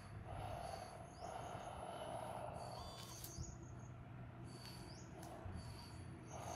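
Electric drive and hydraulic gear pump of a 1/14-scale RC hydraulic wheel loader whirring in stretches as it crawls, over a low hum. A bird repeats a short high call about every second and a half.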